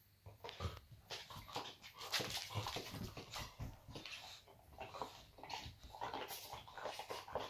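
Boxer dog 'talking': a continuous string of short vocal sounds, starting about a third of a second in.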